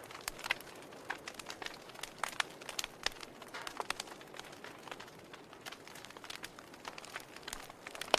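Wood fire burning in a fireplace, crackling with many irregular sharp pops and snaps over a soft steady hiss.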